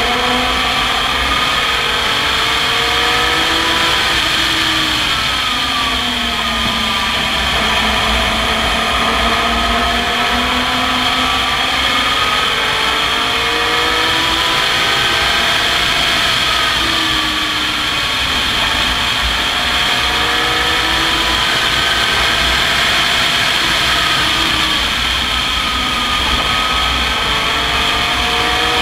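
Open-cockpit race car's engine heard from on board at racing speed, its revs climbing and falling again and again through the lap, over a steady rush of wind.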